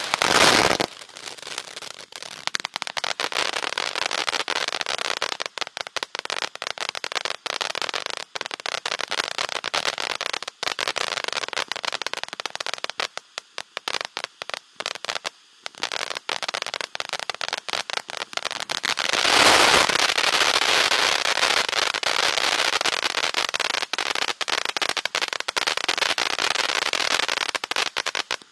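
Consumer firework fountain spraying sparks with a continuous hiss and dense crackling. It flares loudly in the first second, thins to a lull around the middle, and surges louder again about two-thirds of the way through.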